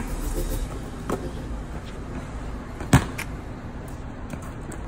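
A basketball thudding on an outdoor court a few times at uneven intervals, the loudest hit about three seconds in, over a steady background rumble.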